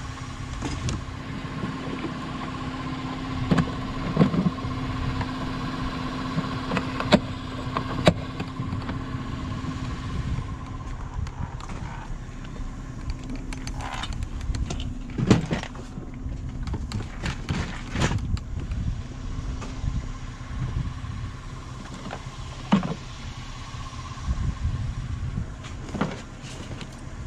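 A plastic toolbox and plastic storage bins being handled and set down, giving scattered knocks and clicks over a steady low hum.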